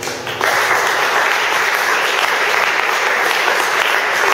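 Congregation applauding: a dense, steady clapping that starts about half a second in.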